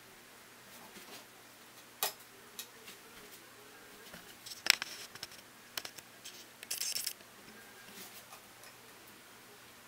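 Light handling noise: scattered small clicks and taps, one sharp click about halfway through and a short rustle a couple of seconds later.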